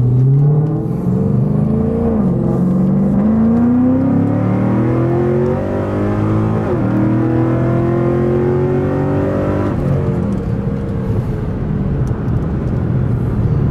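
Cadillac CTS-V with a 7-liter (427) naturally aspirated V8 accelerating hard, heard from inside the cabin. The engine note climbs, drops at upshifts about two and a half and seven seconds in, climbs again, then eases off to a steadier cruise near ten seconds in.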